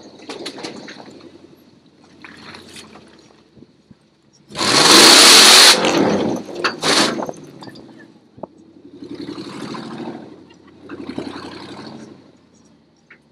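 Supercharged 2UZ-FE V8 of a lifted Toyota pickup revving in several bursts while driving through mud. About four and a half seconds in comes the loudest stretch: a hard rev under a loud rush of noise as mud is thrown up, with a shorter burst a second later.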